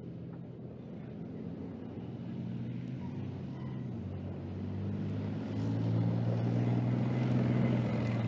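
Leopard 2 tank's V12 diesel engine running as the tank drives closer, growing steadily louder with a further rise about five and a half seconds in.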